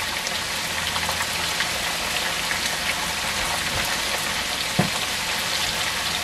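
Green and wax beans stir-frying in hot canola oil in a wok on full heat: a steady sizzle with small crackles. A single soft knock about five seconds in.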